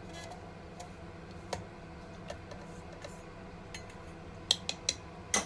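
Sporadic light clicks and taps of a wooden spatula and a metal pot against a blender jar as cooked carrot slices are scraped in, with a quick cluster of sharper taps near the end.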